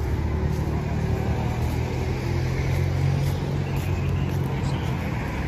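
Road traffic: a motor vehicle's engine running close by as a steady low hum.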